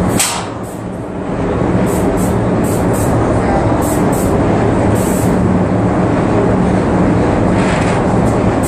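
Steady mechanical rumble and hum of an airless paint-spraying setup running, with short sharp hisses, a dozen or so, as the spray gun is triggered in quick bursts onto a steel excavator bucket. The sound dips briefly about half a second in.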